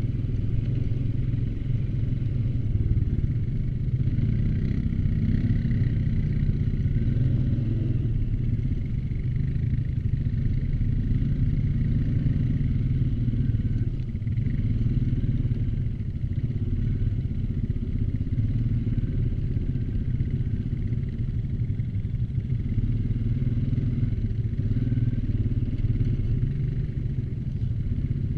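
An ATV's engine running steadily while the quad is ridden, its note rising and dipping slightly.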